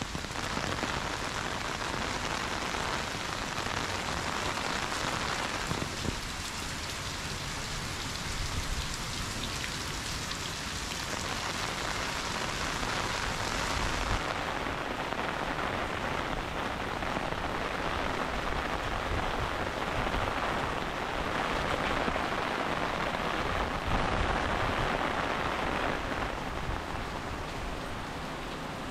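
Heavy rain falling and pattering on surfaces, a steady hiss.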